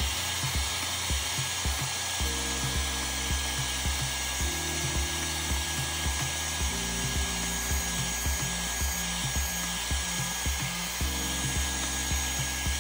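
Dyson Supersonic hair dryer blowing steadily, a rush of air with a thin high whine over it, heating the edge of the phone's screen to soften the display adhesive.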